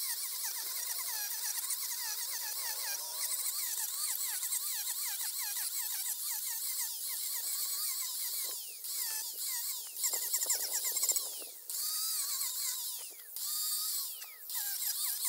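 Makita angle grinder with a King Arthur chainsaw-tooth carving disc grinding into cedar wood. Its high whine keeps sagging and recovering in pitch as the disc bites and frees. Several brief drops in level come in the second half as the disc eases off the wood.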